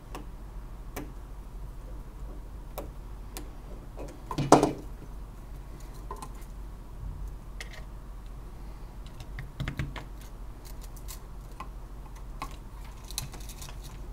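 Scattered small clicks and taps as wires are handled and fastened into a circuit-board terminal block with a small screwdriver, with one louder knock about four and a half seconds in.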